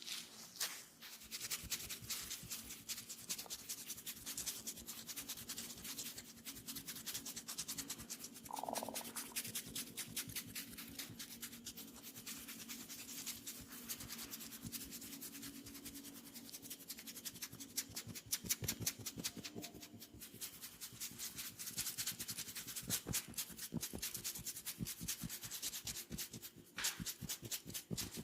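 Hands rubbing and kneading oiled skin in quick, dense friction strokes.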